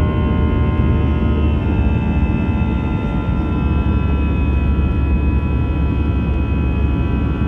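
Airbus A320's CFM56 turbofan engines heard from inside the cabin during the climb: a steady low roar under a whine of several tones. A couple of seconds in, the whine eases slightly lower in pitch.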